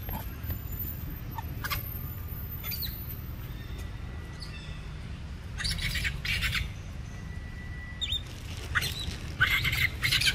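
Young monkeys giving short harsh squeals in two bursts, about six seconds in and again near the end, as one chases the other over dry leaf litter, with dry leaves rustling under their feet.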